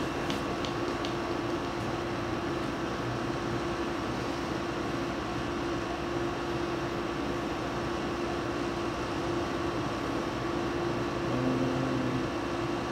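A steady mechanical hum, with a few faint clicks in the first second.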